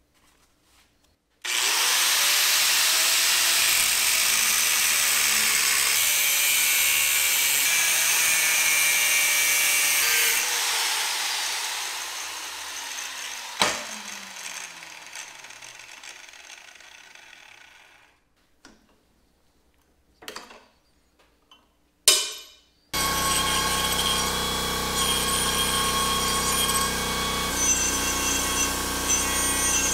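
A DeWalt angle grinder with a cutoff wheel cuts metal for about nine seconds, then fades, and its motor winds down with a falling whine. A few knocks follow. Near the end an air compressor kicks on and runs steadily.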